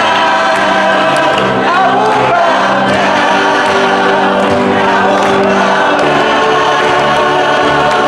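A choir singing a gospel-style song, several voices on held notes that slide gently in pitch.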